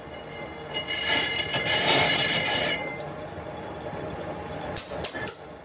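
Lathe machining a cast-iron truck brake drum, the boring tool squealing against the spinning drum with several steady high tones for about two seconds. A few sharp metallic clinks follow near the end.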